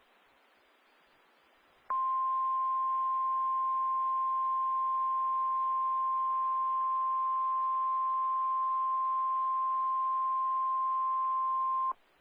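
NOAA Weather Radio warning alarm tone: a single steady high-pitched tone of about 1050 Hz. It starts sharply about two seconds in after faint radio hiss, holds for about ten seconds and cuts off abruptly. It is the attention signal that a weather warning message is about to follow.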